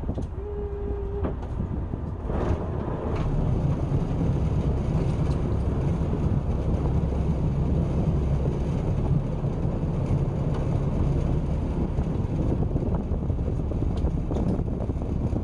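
Fishing boat's engine running steadily, a low rumble with a constant hum. A short single tone sounds about half a second in.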